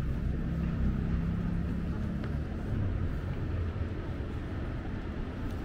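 Motor vehicle engine running, a low rumble with a slowly shifting pitch.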